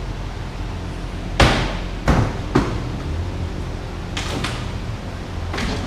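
Knocks and clunks of a motorcycle's shipping crate and packaging being handled: three sharp knocks in quick succession, then a few softer clatters, over a steady low hum.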